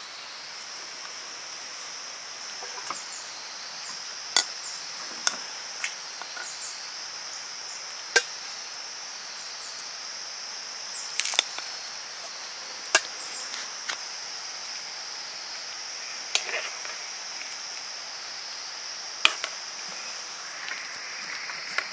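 Sharp knocks at irregular intervals, about nine of them a second or more apart, over a steady high-pitched buzz.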